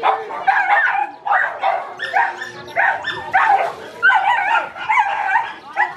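Several dogs fighting, with rapid, repeated barks and yelps coming several times a second.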